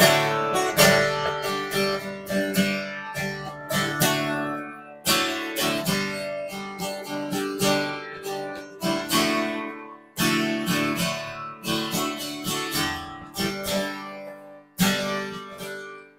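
Acoustic guitar strummed alone, without voice: chords rung out with a strong strum roughly every five seconds, and the playing stops at the very end.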